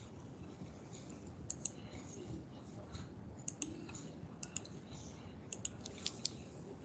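Clicking at a computer: several sharp clicks, mostly in quick pairs, over a low steady hum.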